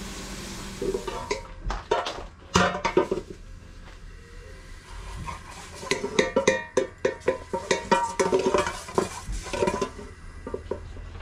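A cooking utensil stirring and clacking against an aluminium pot on a gas burner: runs of quick knocks with a short metallic ring, after a steady hiss at the start.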